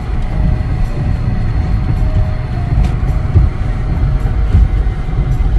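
Steady low rumble of a moving vehicle heard from inside it.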